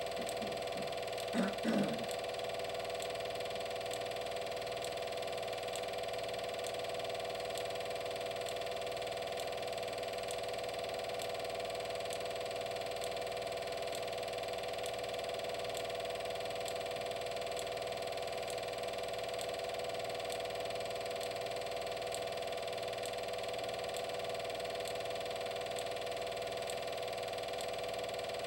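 Steady mechanical hum of a film projector motor running, with a faint regular tick about once a second. Two short louder sounds break in about a second and a half in.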